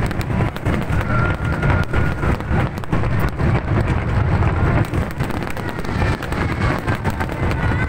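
Fireworks display: a dense, continuous barrage of bangs and crackles, with faint whistle-like tones now and then.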